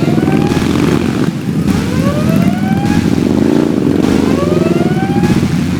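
Big motorcycle engines running loud, with several rising revs about a second apart as bikes accelerate one after another.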